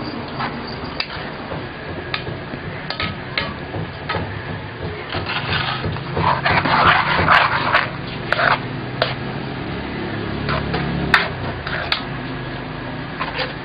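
Metal spatula knocking and scraping against a stainless steel pan as soup is stirred: irregular clinks, with a busier run of scraping about halfway through.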